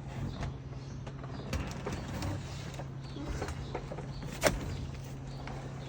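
A refrigerator being lifted and shifted by hand: scattered knocks, bumps and creaks, the loudest about four and a half seconds in, over a steady low hum.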